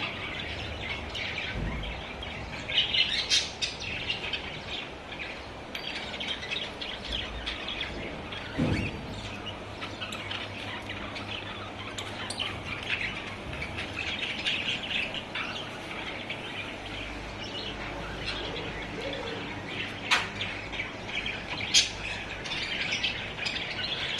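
Pet budgerigars chattering and chirping continuously, with a few sharp clicks mixed in.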